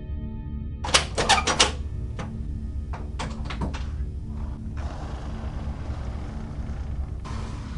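Rapid loud banging on a door, about five blows in quick succession a second in, then scattered knocks and a rough, hissing scuffle of noise.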